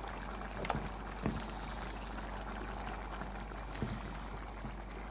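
A pot of bean porridge simmering with a steady bubbling hiss, with a few short thuds, about three, as chunks of yam are dropped into it.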